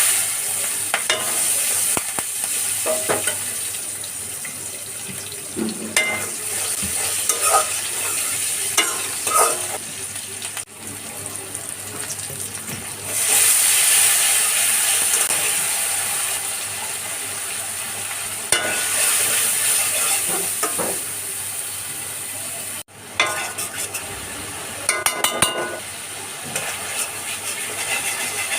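Food frying in hot oil in a pan, with a steady sizzle and a spatula stirring and scraping against the pan in short clicks. The sizzle rises sharply about halfway through.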